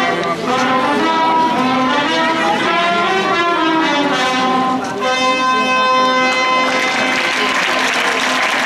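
Brass band playing a dance tune, which ends about seven seconds in and gives way to the crowd clapping and applauding.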